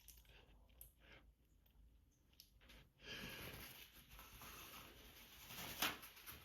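Faint breathing and sniffing through an allergy-congested nose, starting about three seconds in, with one short sharp noise near the end.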